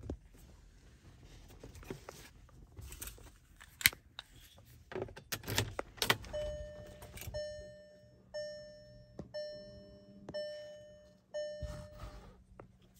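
Keys jangling and handling clicks, then the 2015 Volkswagen Golf's dashboard warning chime sounding about halfway in once the ignition is on: six single bell tones about a second apart, each fading, over a steady low hum.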